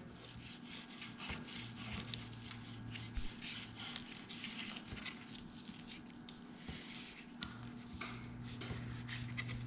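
Kitchen knife sliding along the skin of a mangrove snapper fillet on a plastic cutting board, separating the skin from the flesh: faint scraping with small clicks and crackles. A steady low hum runs underneath.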